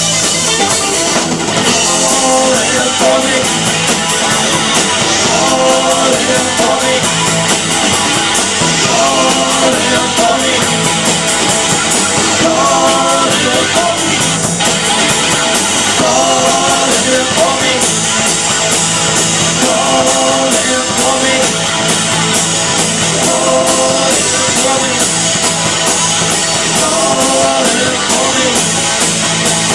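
Rock band playing live: electric guitar and drum kit, with pitched phrases that come back every couple of seconds, likely sung lines.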